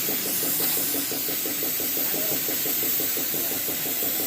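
Caterpillar 320D2 excavator's diesel engine running steadily, its firing pulses coming fast and even, with a steady high hiss over it.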